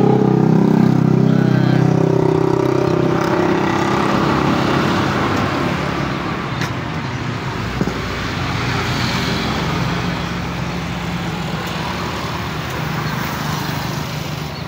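Road traffic passing close by: a vehicle's engine is loudest at the start and fades away over several seconds, over steady road noise, with one short knock about eight seconds in.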